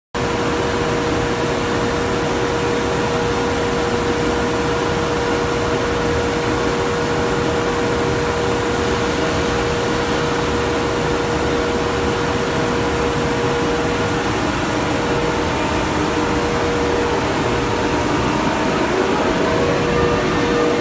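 EMD DM30AC dual-mode locomotive running in electric mode: a steady loud whir of its blowers with a constant hum tone over it. Near the end a few fainter tones begin to shift in pitch.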